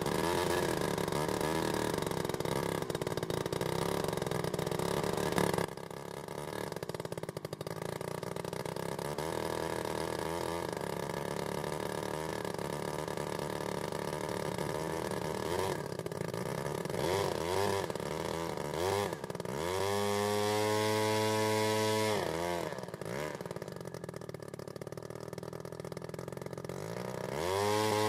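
DLE 85cc single-cylinder two-stroke petrol model aircraft engine running with a spinning wooden propeller on its first run. It settles from a faster speed to a wavering idle with short throttle blips. About two-thirds through it is revved up to a high steady speed, dropped back, and revved up again near the end.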